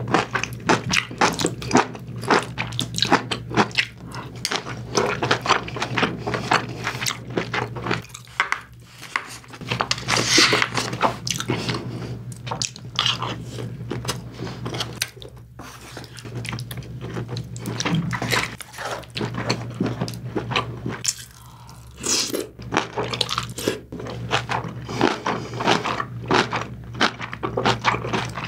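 Close-miked chewing of braised kimchi and pork belly: wet crunching and smacking mouth sounds, a quick run of small crackles with short pauses between bites. A low steady hum runs underneath.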